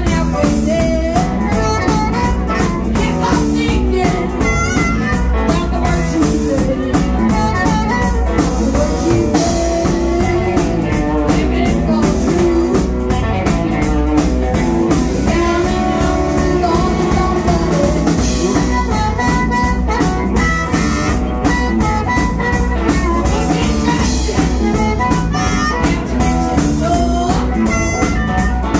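Live blues band playing: electric guitar, electric bass and drum kit, with amplified harmonica played into a cupped microphone and a woman singing.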